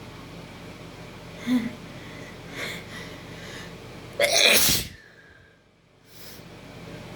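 A person sneezing once, loudly, about four seconds in, after two short, quieter build-up breaths.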